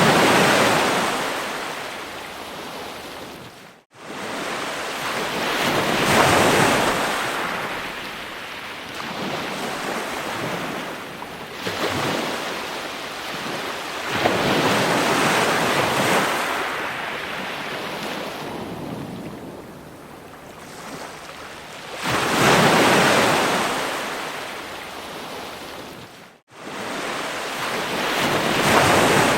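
Ocean surf breaking on a shore: a rushing wash of waves that swells and ebbs every few seconds. The sound cuts out for an instant twice.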